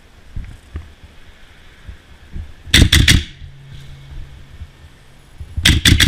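Airsoft gun firing two quick strings of about four or five shots each: one about three seconds in and another near the end.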